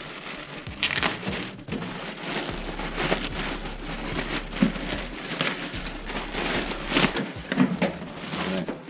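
Clear plastic packaging bag crinkling and rustling as it is pulled open and the waterproof pouch is slid out of it. The crinkling comes and goes, loudest about a second in and again near seven seconds.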